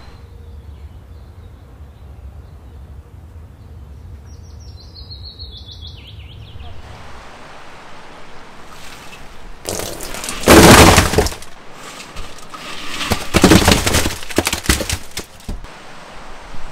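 Loud, crackly crunching close to the microphone in two bouts, about ten and thirteen seconds in, the second a run of quick crunches: bites into crispy fried chicken.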